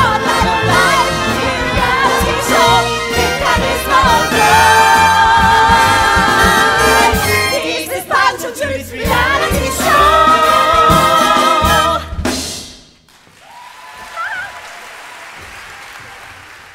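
Stage musical number: an ensemble of singers with orchestra, the voices holding long notes with vibrato. The music stops about 12 seconds in, leaving a quieter steady hiss.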